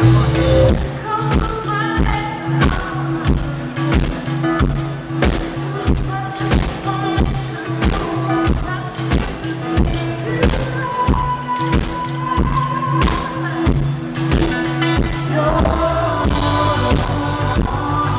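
Live band music with a woman singing over a steady drum beat of about two strokes a second, recorded with rough sound quality through a small camcorder's microphone.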